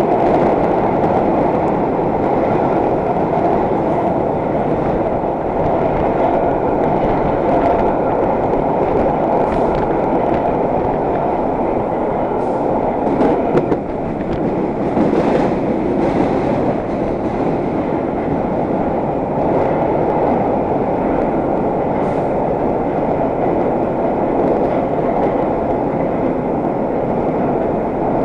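Heard from inside a vintage IRT Low-V subway car running at speed: a steady, loud rumble of wheels on rail. A few sharp clicks and knocks come roughly midway through.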